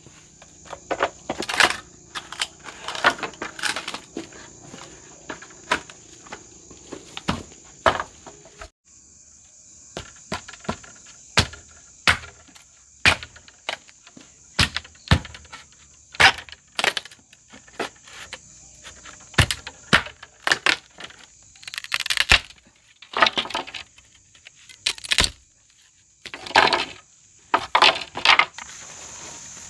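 Steady high-pitched insect drone with irregular sharp knocks and cracks, some a second apart and some several seconds apart, and a few short clattering bursts.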